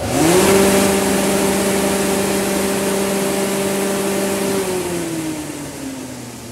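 Electric cattle-feed hammer mill, run with its front cover open. Its rotor and hammers spin up within a fraction of a second, then run steadily with a hum and a strong rush of air. A little over four seconds in, the pitch slides down and the sound fades as the rotor winds down.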